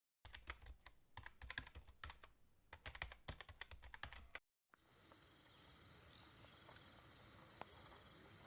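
A rapid, uneven run of sharp clicks like keyboard typing lasts about four seconds. After a brief cut comes a steady outdoor bed with a thin, high, continuous insect drone.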